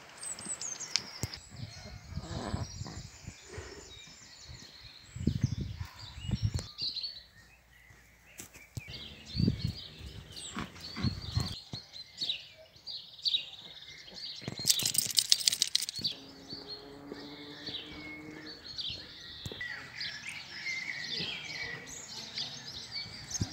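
Outdoor ambience of songbirds chirping, over intermittent low rumbling thumps on the microphone. About two-thirds of the way through comes a brief harsh rattle.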